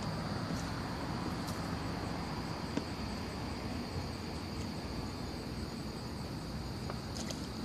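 Steady outdoor night ambience: a constant high insect drone over an even hiss, with a faint click about three seconds in.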